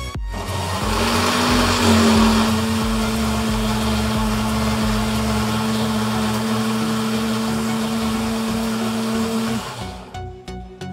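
Electric motor whirring steadily with a low hum and a hiss. It spins up about a second in and stops near the end.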